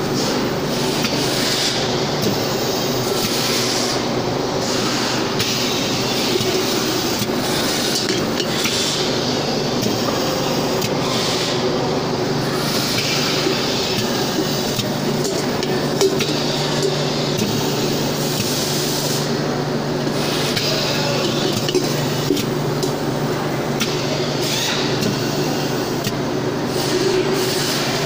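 Pad printing machine running through its print cycles with a steady hum and a hiss that swells every few seconds, while stainless steel kettle bodies clink against its metal fixture as they are loaded and taken off.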